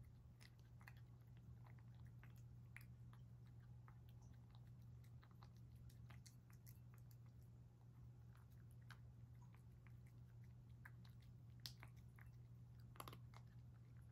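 Grey cat eating from a bowl: faint, irregular chewing clicks and crunches, with a couple of louder ones near the end, over a steady low hum.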